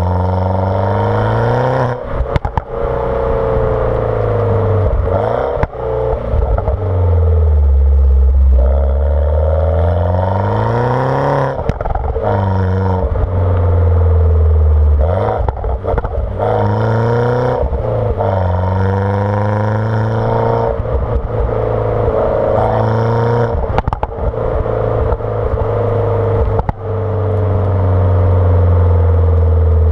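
R56 Mini Cooper S's turbocharged 1.6-litre N14 four-cylinder, fitted with a JCW exhaust and decat, being revved and driven through the gears. The engine note climbs and falls over and over. Sharp exhaust pops and crackles come at each break in the note, as the throttle is lifted.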